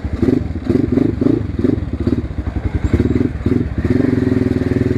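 Loud exhaust of an Asian Beast 250 dirt bike, its engine running and blipped again and again in short revs, then held up for about a second near the end.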